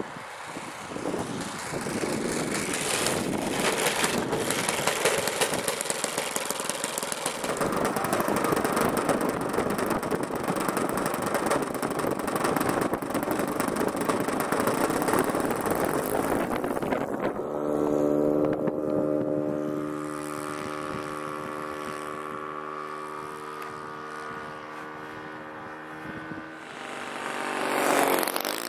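SC 91 four-stroke glow engine on a radio-control model plane. It runs with a rough, noisy sound for the first half, then settles into a steady idle on the ground for about ten seconds. Near the end it opens up with a rising note for a take-off run.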